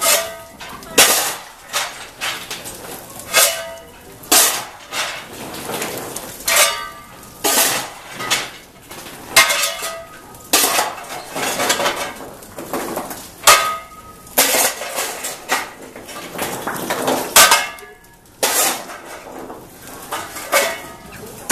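Hand-stoking a coal-fired steam boiler: a steel shovel scraping into a heap of coal and lumps of coal clattering as they are thrown into the firebox, about once a second, with sharp metallic clangs that ring briefly.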